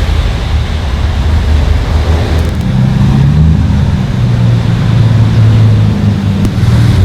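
A car engine running at low revs. Its pitch steps up slightly about three seconds in and holds there.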